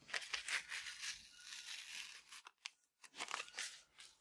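Masking paper and masking tape being peeled and torn off a car's window frame after painting, with faint crinkling of the paper that stops briefly a little before three seconds in.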